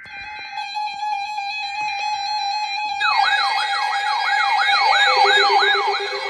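Electronic alert tones: a steady tone with stepped beeps over it. About three seconds in, a fast siren-like sweep joins, rising about three times a second, with a warbling higher tone above it.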